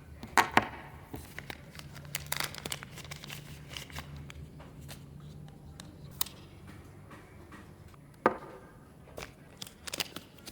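Product packaging being unboxed: crinkling and tearing of wrapping, with scattered sharp clicks and taps, the loudest just after the start and again about eight seconds in.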